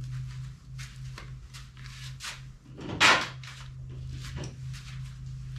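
Workshop handling noise: a run of light knocks and clatter with one loud knock about three seconds in, over a steady low hum.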